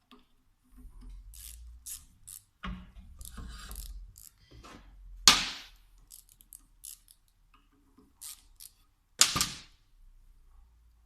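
Hand tools and small metal parts of a VE diesel injection pump clicking and clattering during disassembly, with two sharp loud clacks about five and nine seconds in.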